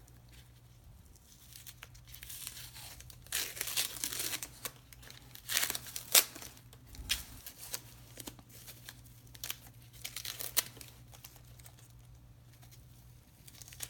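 Packing material crinkling and tearing in irregular rustles as items are pulled out of a parcel, starting a few seconds in and dying away near the end.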